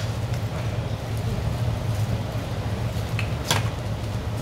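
Steady low hum of a restaurant ventilation fan, with a couple of light clicks from a pick working on steamed oyster shells about three seconds in.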